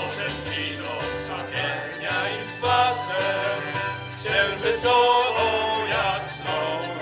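A man singing a song live through a stage PA, over a musical accompaniment with a steady beat and a moving bass line.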